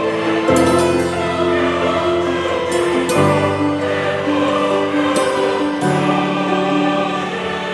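Background music: choral voices over held chords that change every couple of seconds.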